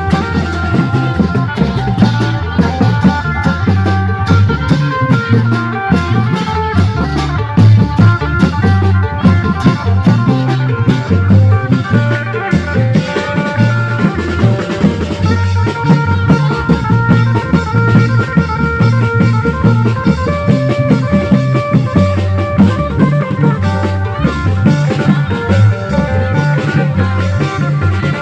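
Klong yao (Thai long drum) band playing: a steady, dense drum beat with held melodic notes over it.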